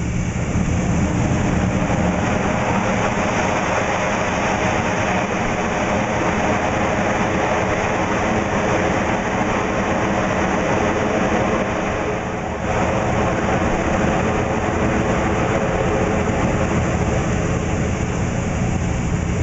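Boeing 737 jet engines running loud and steady during the landing roll-out, with a brief dip in level about twelve seconds in.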